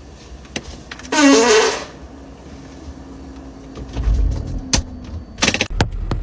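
A person farting once, about a second in: a loud, buzzy blast with a wavering pitch lasting under a second. A few sharp knocks follow near the end over a low rumble.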